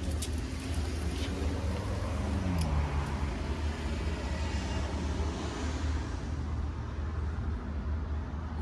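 Road traffic noise: a steady low rumble, with a vehicle passing by in the middle, its pitch falling about two and a half seconds in.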